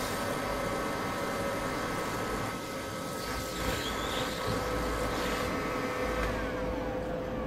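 Hot-air rework station blowing steadily, a fan hiss with a faint steady whine, as heat is applied to solder a charging port onto a phone board.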